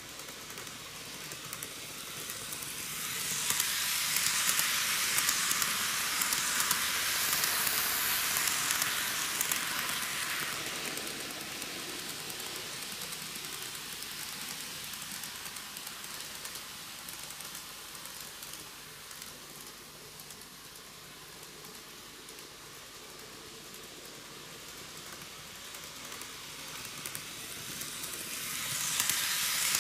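N gauge Microace Meitetsu KiHa 8000 series six-car model train running on TOMIX superelevated track, its wheels and motor making a steady, hiss-like running noise. The noise grows louder about three seconds in, fades away as the train runs round the far side, and swells again near the end as it comes back round toward the camera.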